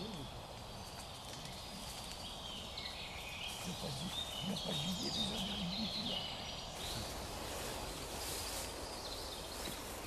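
Beech-forest ambience with birds singing in the background and a faint low voice around the middle, then from about seven seconds in rustling footsteps through dry fallen leaves.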